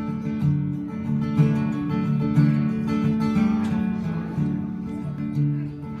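Acoustic guitar strumming chords in a steady rhythm, with no voices.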